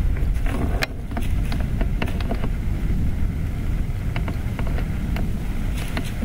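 Steady low wind rumble on the microphone, with irregular crisp crackles of dry leaves as a white-tailed doe steps through the leaf litter.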